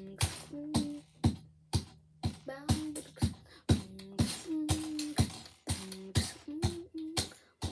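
Rhythmic music with a sharp percussive beat about twice a second and short pitched notes between the beats.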